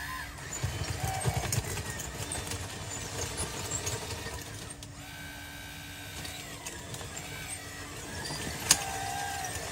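Small electric motors and gearboxes of RC construction models whirring and whining, the whine wavering as the motors change speed, with one sharp click near the end.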